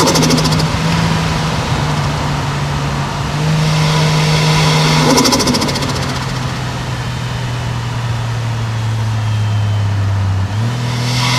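Toyota 1JZ-GTE turbocharged straight-six running under way, with two brief bursts of turbo flutter on throttle lift-off, at the start and about five seconds in. The engine note drops after each burst, then holds steady and steps up again near the end.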